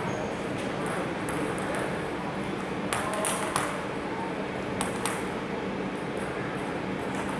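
Celluloid-type table tennis balls clicking sharply off bats and the table, a few separate pocks spread across a few seconds, over the steady background noise of a large sports hall.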